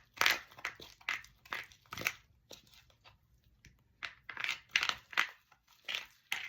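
Slime being stirred and mixed in a bowl as the glue meets the activator: a run of short crackling squelches, about two or three a second, pausing for about two seconds in the middle. The slime is activating quickly.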